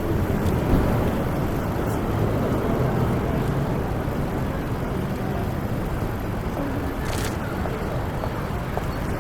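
City street traffic: motor vehicles running past in a steady rumble, with a brief hiss about seven seconds in.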